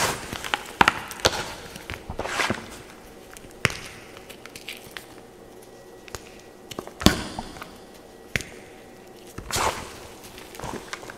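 Hands crushing and crumbling dyed gym chalk and dried cloud soap in a bowl: dry crunches and sharp snaps at irregular intervals, busiest in the first couple of seconds, with the loudest snap about seven seconds in and another crunch near the end.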